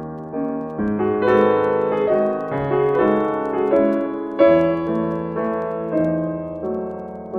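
Background piano music: a slow succession of struck notes and chords, each ringing and fading before the next.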